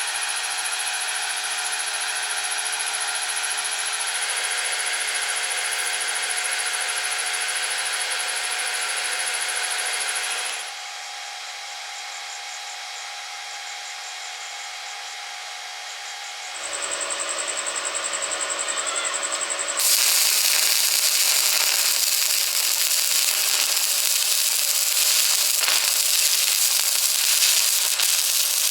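A power tool running steadily with a constant whine. After abrupt cuts, a loud, even hissing and crackling electric welding arc takes over for the last third.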